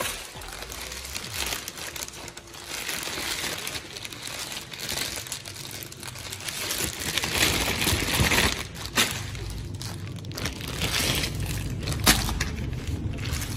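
Plastic courier mailer bag crinkling and rustling as hands open and handle it, with a few sharp crackles of the plastic.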